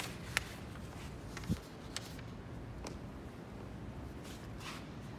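Paper flyers being handled on a bulletin board: a few scattered light taps and rustles, with one dull thump about a second and a half in.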